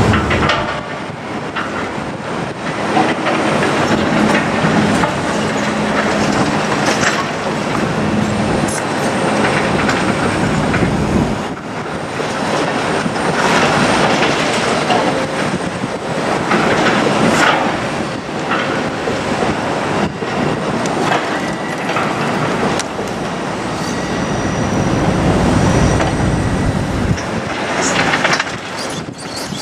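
Kobelco hydraulic excavators working demolition rubble: engines running under a steady stream of clanks and knocks as buckets scrape and drop broken concrete and scrap, some of it into a dump truck's steel bed.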